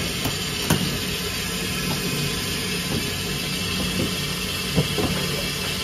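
Steady bakery machinery noise, a constant hiss over a low hum. A few sharp knocks come from dough being cut and handled on the steel table, one under a second in and one near the end.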